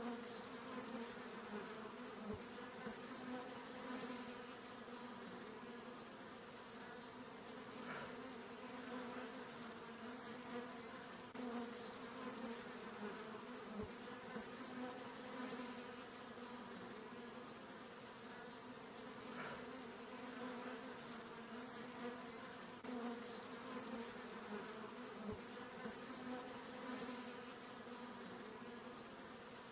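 Honey bees buzzing: a steady wingbeat hum with a low note and higher overtones, swelling slightly now and then.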